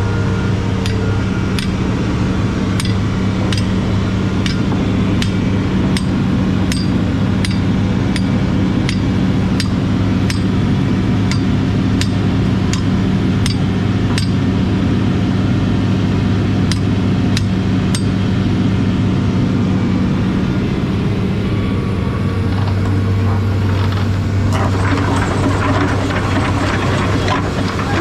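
A vehicle engine running steadily with a constant low hum. Sharp ticks come about one to two a second through the first two-thirds, and a hiss rises in near the end.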